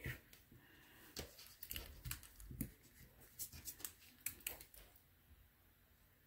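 Drawing paper being handled on the desk: a quick run of rustles, scrapes and light taps for about five seconds, then quieter.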